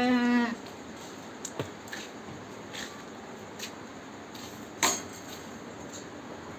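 A goat bleats once, a short quavering call right at the start. Scattered light clicks and knocks follow, the loudest almost five seconds in.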